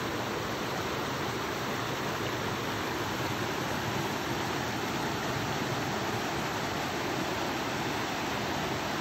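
Steady rush of a small mountain waterfall and the rocky stream running below it.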